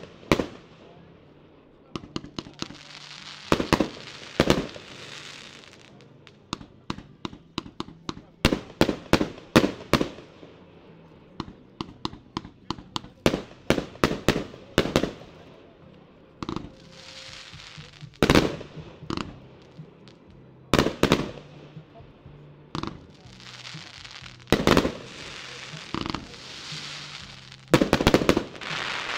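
A 0.8–1.2 inch, 156-shot firework cake firing: volleys of sharp launch thumps and bursts, with spells of hissing crackle between them. A last dense volley comes near the end.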